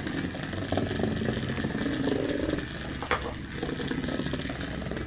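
Small electric motor of a HexBug Mouse robotic cat toy buzzing as it runs, with a sharp click about three seconds in.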